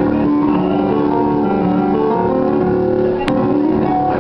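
Keyboard playing sustained chords at a steady level, with one sharp click about three seconds in.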